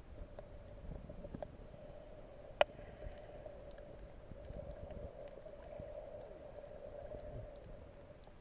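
Muffled underwater sound picked up through a camera's waterproof housing: low sloshing of moving water with a faint steady hum, and scattered sharp clicks, one much louder about two and a half seconds in.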